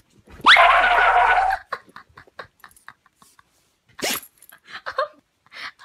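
Excited dog giving one loud, high whine that sweeps up in pitch and holds for about a second, followed by a string of short clicks close to the microphone and a brief louder burst about four seconds in.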